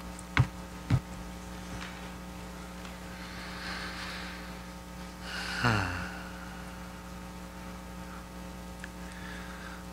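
Steady low electrical mains hum from a sound system during a pause, with two soft clicks about half a second and a second in, and a breath followed by a short falling sigh about halfway through.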